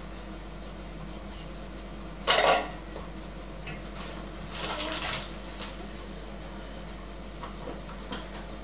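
Kitchen utensils being handled: one sharp clatter about two seconds in, the loudest sound, then a shorter, softer scrape near the middle and a few light clicks.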